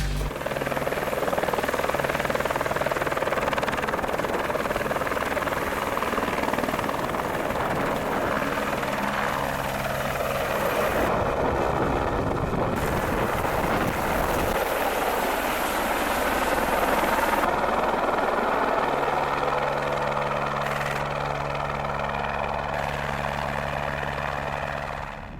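Paramotor engine and propeller running steadily in flight, with rushing air; the engine note shifts a few times as the throttle changes.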